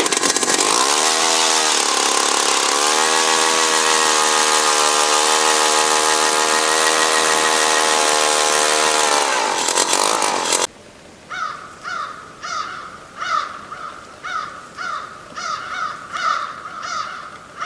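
Motorized ice auger running as it bores into lake ice: the motor revs up, dips briefly, holds a steady pitch for several seconds, then winds down. Then, after a sudden cut, a crow caws about a dozen times.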